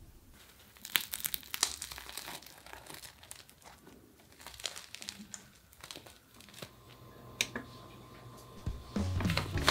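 A crusty bread roll being torn open by hand, its crisp crust crackling in a quick run of small sharp crackles. Music starts near the end.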